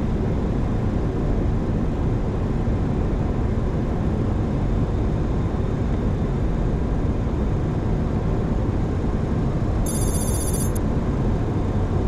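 Steady cockpit noise of a Boeing 737-800 on final approach: airflow and engine noise, strongest at the low end. About ten seconds in, a brief high-pitched ringing trill sounds for under a second.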